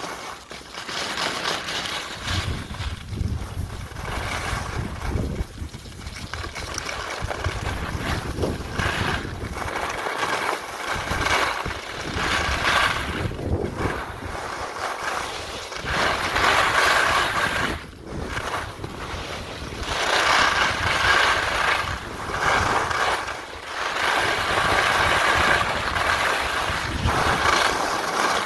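Skis scraping and hissing over spring snow through a series of turns, swelling and fading every few seconds, with wind rushing over the microphone.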